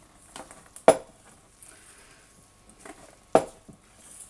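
Metal utensil stirring thick cookie dough in a stainless steel mixing bowl, clinking sharply against the bowl twice, about a second in and just past three seconds, with softer taps and scraping between.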